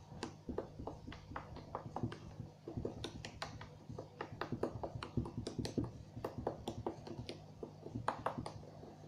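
Slime being poked over and over with one finger, giving many small, irregular sticky clicks and pops. It is a slime with a few foam beads mixed in.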